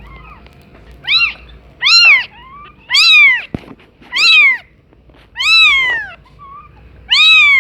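Kitten meowing over and over: six high-pitched calls about a second apart, each rising then falling in pitch.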